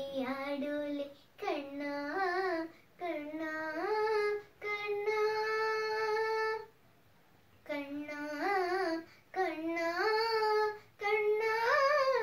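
A girl singing a Malayalam devotional song unaccompanied, in several drawn-out phrases. A long held note comes about five seconds in, followed by a brief pause.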